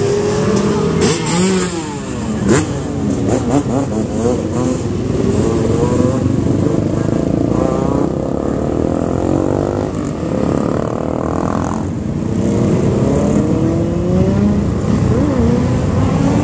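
A procession of sportbikes riding past one after another, several engines overlapping, each rising and falling in pitch as it revs and passes.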